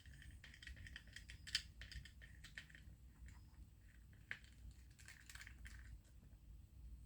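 Faint, scattered clicks and short scrapes of small plastic and metal parts and tools being handled while the front end of a 1/10 RC car chassis is taken apart.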